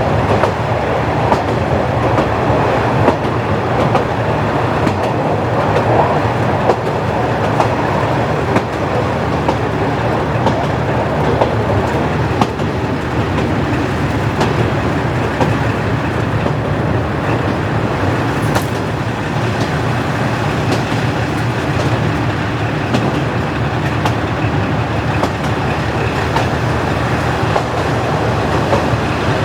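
JNR KiHa 40-series diesel railcar with its original DMF15HSA diesel engine running steadily along the line: an even engine and running drone with the light clickety-clack of wheels over rail joints.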